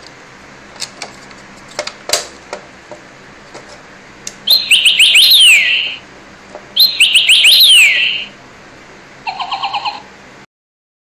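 Electronic robotic toy bird chirping: two loud bursts of quick falling chirps, then a short run of beeping pulses near the end. A few light clicks come before the chirps.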